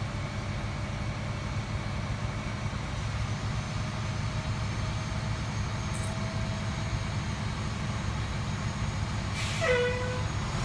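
Tiller ladder fire truck's diesel engine running with a steady low rumble as the truck pulls away, with a brief high-pitched sound near the end.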